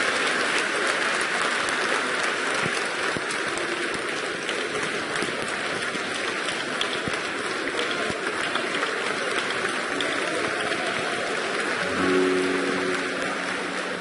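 Audience applauding, a long unbroken round of clapping. About twelve seconds in a low sustained note comes in under the clapping.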